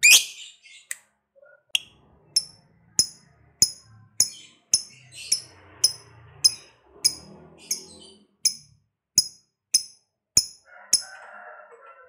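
Lovebird giving a long run of short, sharp, high chirps, evenly spaced at nearly two a second, with a brief lower chatter near the end.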